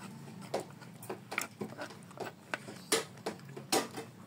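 Eating rujak: irregular mouth clicks and smacks of chewing, about a dozen in all, with a metal spoon clinking in a stone mortar bowl.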